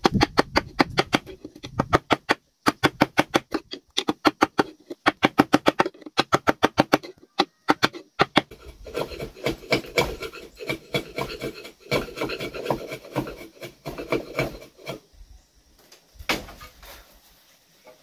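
A saw cutting into a wooden pole: quick, regular strokes, about four or five a second, for the first half, then after a short pause a denser, rasping stretch of cutting, ending in a few separate knocks.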